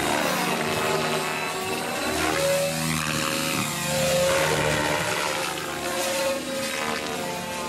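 Macrozz X7 radio-controlled helicopter in aerobatic flight: the motor and rotor hum rises and falls in pitch as it swoops past and changes attitude.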